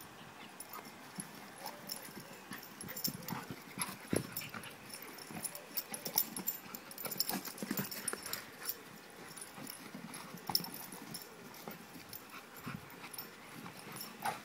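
A Doberman and a Staffordshire bull terrier play-fighting: a string of short, irregular dog noises mixed with the scuffle of paws on grass, busiest through the middle.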